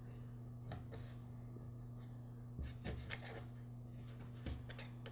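Razor blade scraping old gasket remnants off a metal carburetor heat shield: a few faint short scrapes, clustered a little past the middle, over a low steady hum.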